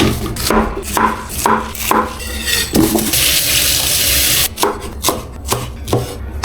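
Kitchen food-prep sounds: a string of light knocks and rubbing or scraping on a wooden surface, about two a second. A steady hiss runs for about a second and a half midway.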